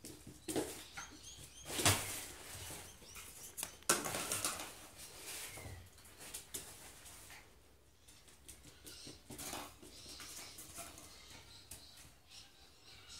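A Burmese kitten and a miniature Schnauzer puppy play-fighting around a step stool: irregular scuffling, scrabbling and rustling, with two louder bumps about two and four seconds in.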